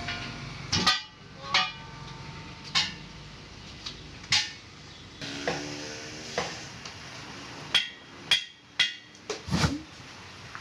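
About ten sharp metallic clanks at irregular intervals, each ringing briefly: a hammer striking a steel truck wheel rim. Several come close together near the end.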